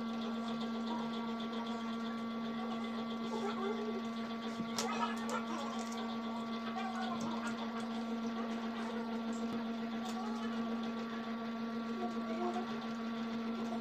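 A steady electrical hum from a running motor or appliance, holding one low pitch with higher tones above it, with a few faint clicks about five seconds in as meat is pulled apart by hand.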